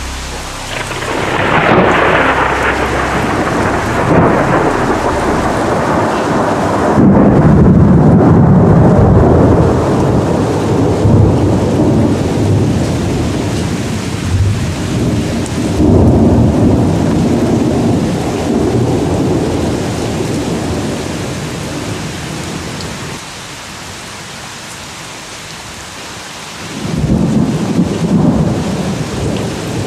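Thunder rolling over steady rain in a thunderstorm. A long, deep rumble builds a second or two in and rolls on in several swells before dying away. A fresh peal breaks near the end.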